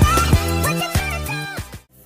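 Sped-up music clip, dying away near the end into a brief silence.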